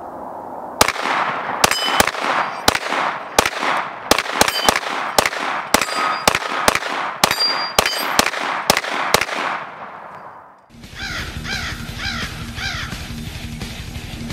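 Glock 34 Gen 5 MOS 9mm pistol firing a long rapid string of shots, two or three a second, each echoing, with a brief metallic ring after some of them. The shots stop and, about three-quarters through, guitar music starts.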